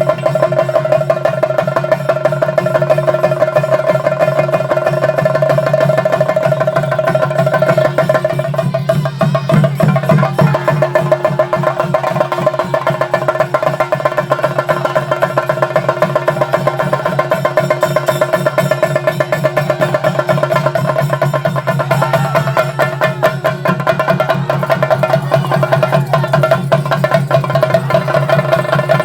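Theyyam percussion ensemble playing: fast, dense drumming over a steady held tone.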